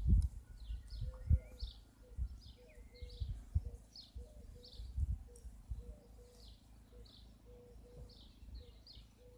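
Birds singing: short high chirps repeated several times a second, with a lower short note repeating about twice a second beneath them. Dull low thumps and rumbles, loudest in the first half.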